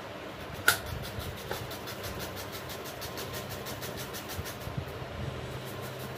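Hand-held metal grater scraping a peeled green vegetable into a steel bowl: a quick, even rasp of about five strokes a second, with one sharp knock near the start.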